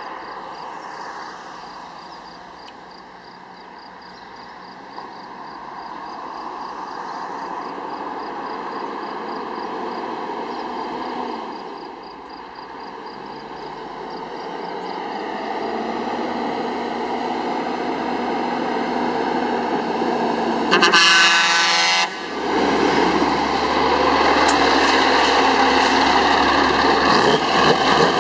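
Scania truck's diesel engine approaching and growing louder, then one horn blast about a second long, followed by the engine running loud as the truck passes close.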